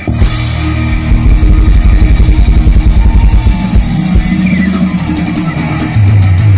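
Rock music with fast, steady drumming.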